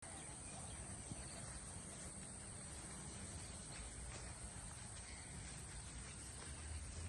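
A steady, high-pitched chorus of insects, with a faint low rumble underneath.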